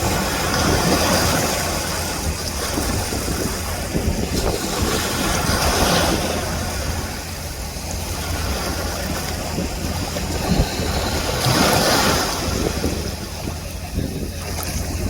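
Wind buffeting the microphone over a steady rush of surf, the noise swelling three times as waves come in.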